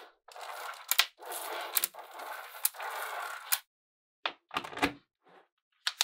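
Small magnetic balls being handled: strings and sheets of balls rattle and scrape against each other and the tabletop, with sharp clicks as balls snap together, about one a second. A dull knock comes a little before five seconds in.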